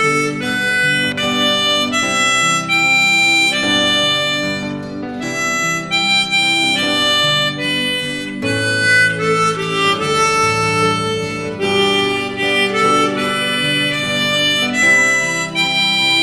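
Harmonica playing a song melody in a run of clear, held and moving notes over a lower sustained accompaniment.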